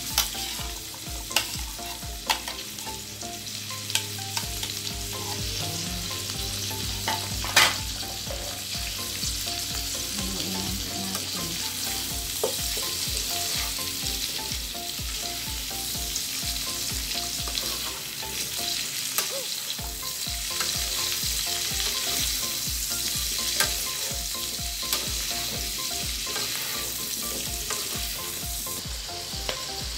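Pork, squash and string beans sizzling steadily in a frying pan as they are stirred with a metal spoon, with scattered sharp clinks of the spoon against the pan, the loudest about seven and a half seconds in.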